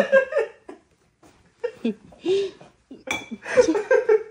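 Two young men laughing hard, in three bursts with short pauses between them.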